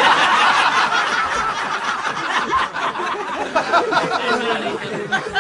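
A group of people laughing and chuckling together after a joke's punchline, many voices overlapping, easing off slightly toward the end.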